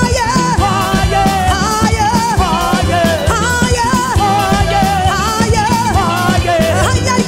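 Live gospel praise music: a band with drum kit and bass playing a steady, danceable beat under a wavering sung melody line.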